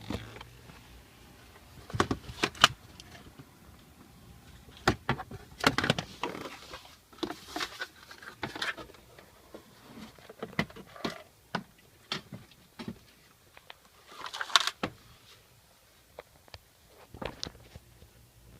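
Irregular clicks and knocks, more than a dozen with uneven gaps, with short rattling stretches about six and fifteen seconds in.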